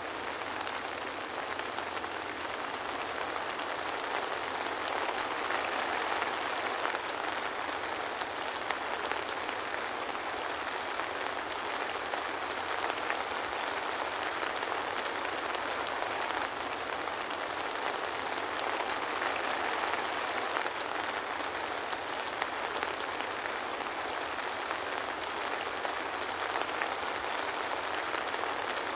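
Steady soft rain falling, an even dense patter of drops with no thunder.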